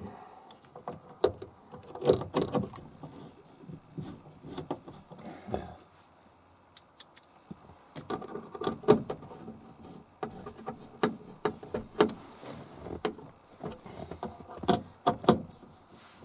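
Hand work inside a car's sliding door: a screwdriver and small parts clicking, tapping and knocking against the door's inner metal panel and its brackets, in uneven bursts with short pauses.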